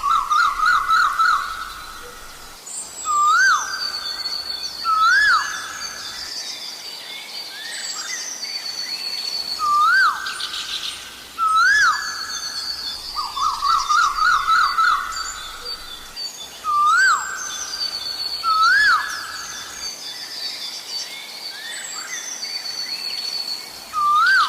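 Asian koel calling: a loud, repeated, rising 'koho' note every second or two, now and then run together in a quick series, while smaller birds chirp and trill at a higher pitch behind it.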